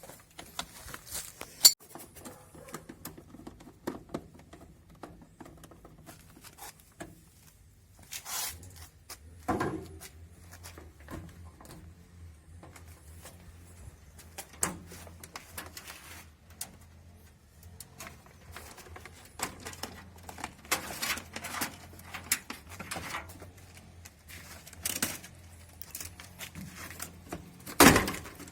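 Scattered knocks, clicks and rattles of hand tools and washing-machine parts being handled during disassembly, the loudest knock near the end. A faint low hum comes in about eight seconds in.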